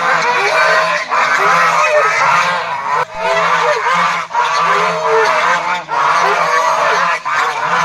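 A flock of domestic geese honking and calling over one another in a continuous, dense chorus of short overlapping calls.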